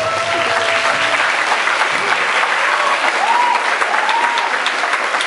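Audience applauding and cheering, with a few short held voice or whistle cries over the clapping.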